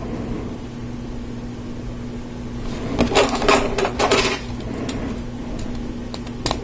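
LEGO Technic plastic parts clicking and clattering in the hands as a gear, axles and a beam are fitted together: a quick run of clicks about three seconds in and one sharp click near the end, over a steady low hum.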